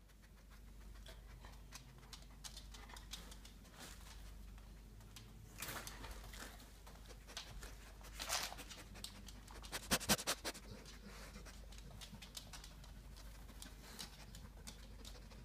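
A dog sniffing and scratching with its paws at wooden floorboards and the base of furniture, trying to reach a treat hidden underneath. There are scattered light scratches and claw clicks, a few short sniffs, and a quick run of sharp clicks about ten seconds in.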